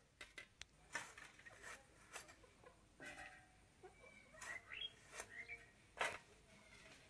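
Faint, scattered crisp clicks of pointed gourds being sliced against a boti, a curved blade held upright by the foot.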